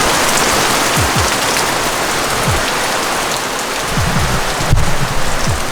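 Heavy rain pouring down steadily, getting briefly louder about four and a half seconds in.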